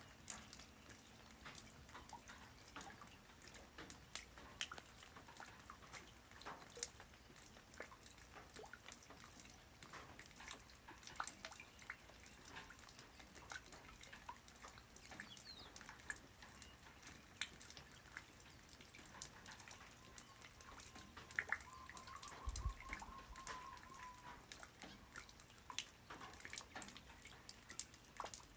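Light rain falling on the ground, faint and soft: individual drops land irregularly as many small ticks over a quiet hiss. Partway through, a faint held tone is heard for a few seconds, and there is one low thud.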